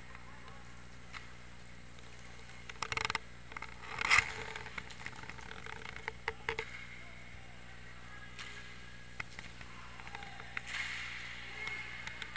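Inline hockey play heard across the rink: scattered knocks and clacks of sticks, puck and skates on the rink floor, with the sharpest knock about four seconds in, over the steady hum of the hall.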